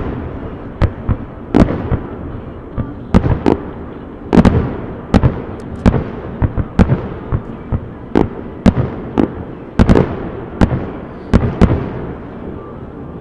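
Aerial fireworks shells bursting: a rapid, irregular barrage of sharp bangs, some in quick pairs and clusters, each trailing off in an echo.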